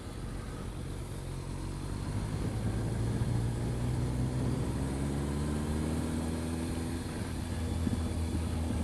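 Kawasaki ZRX1200R motorcycle's inline-four engine running at low speed; it rises a little in pitch from about two seconds in, then holds steady.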